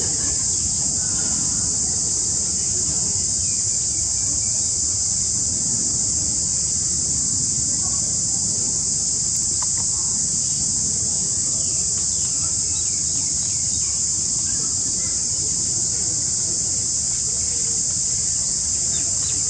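A steady, high-pitched chorus of insects buzzing without a break in tropical forest, with faint short calls now and then underneath.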